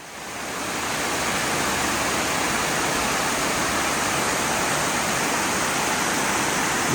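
Small waterfall: a steady rush of water falling over thin layers of rock. It fades in over the first second.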